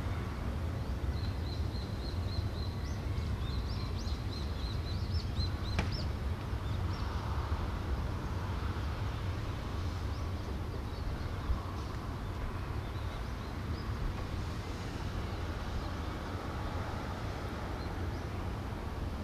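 Outdoor harbour ambience: a steady low rumble, with a small bird chirping a quick run of short high notes in the first few seconds and a single sharp click about six seconds in.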